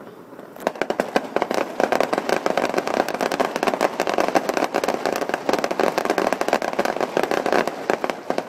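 Fireworks display: a rapid barrage of aerial shell bursts and crackling stars, a dense run of bangs and crackle that starts about half a second in and thins out near the end.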